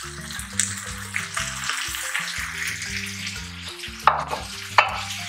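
Pineapple chunks added to a hot frying pan of chicken and cashew nuts, sizzling steadily. There are two sharp knocks near the end, the loudest sounds, over background music with a melody of held notes.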